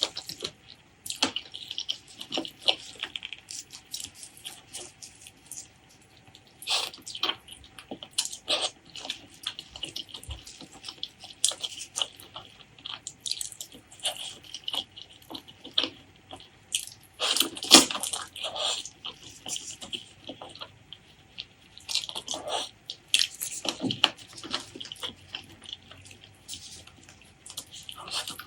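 Close-miked wet chewing and lip-smacking of a person eating pork leg curry with rice. It comes as a dense, irregular run of sticky clicks and squelches, with the loudest cluster about two-thirds of the way in.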